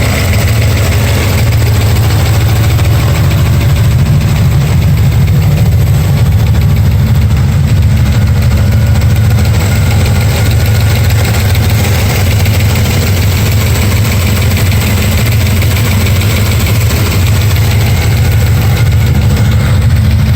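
Vehicle engine idling steadily, with the ticking noise that is being tracked down.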